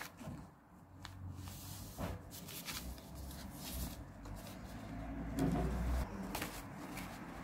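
Paper and stationery being handled close to the microphone: soft rustling with light taps and clicks, and a louder muffled bump near the end.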